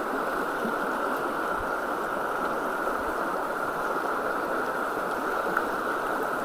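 Creek water running steadily, an even rushing with no breaks.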